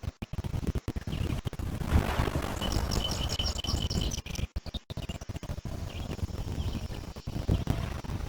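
Lake waves lapping under a low rumble on the microphone. About two and a half seconds in, a small bird sings a rapid trill of repeated high notes for about a second and a half.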